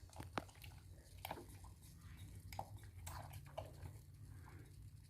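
A baby monkey's soft mouth noises while feeding on milk: scattered small wet clicks and smacks, over a faint steady low hum.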